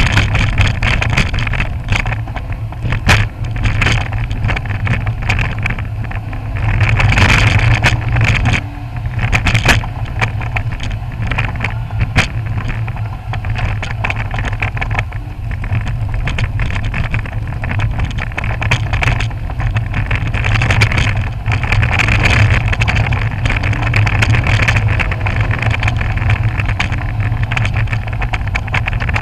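Lancia Stratos's mid-mounted Ferrari Dino V6 running at an easy pace on a rough dirt road, heard from inside the cabin, with frequent sharp clattering knocks over the bumps. The clatter is the right rear shock's cartridge, which has play in its housing and knocks its bottom against the case at each bump.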